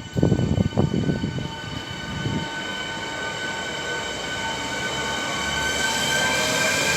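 Electric train approaching, its steady whine of several high tones over running noise growing slowly louder. A few low thumps in the first two seconds.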